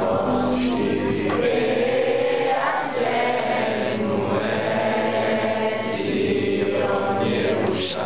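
A group of young men singing together.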